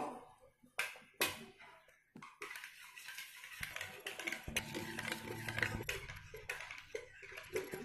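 A wire whisk beating two raw eggs in a plastic mixing bowl: faint, rapid clicking and tapping that starts about two seconds in, after a couple of single clicks.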